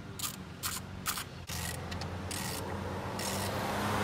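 Socket ratchet wrench clicking in short back-and-forth strokes, about three a second, as a bolt under the hood is turned. It is followed by a steadier rushing noise for the last two seconds or so.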